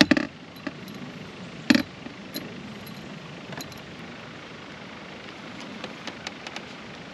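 Light clicks and knocks from fishing tackle being handled in a small boat as a fish is reeled in and landed, two sharper knocks within the first two seconds, over a steady background hiss.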